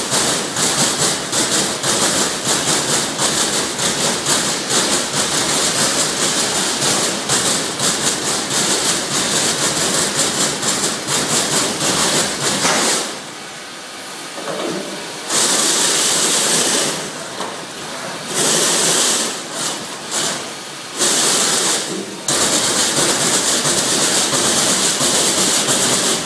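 Trumpf TruPunch punching machine punching a copper sheet: a fast, loud run of rapid strikes. About halfway through it stops for a couple of seconds, then resumes in short bursts with brief pauses between them.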